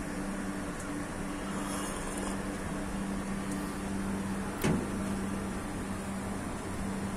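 Steady low mechanical hum with two even tones, and one sharp knock a little past halfway.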